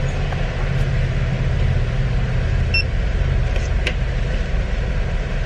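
Steady low rumble of a car's engine and cabin, heard from inside the car, with one short high beep about three seconds in.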